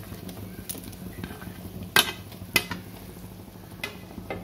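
Metal spoon stirring cut besan pieces into a boiling masala gravy in a metal pan, with two sharp clinks of spoon on pan about two seconds in, half a second apart, and a few fainter taps. A low steady hum runs underneath.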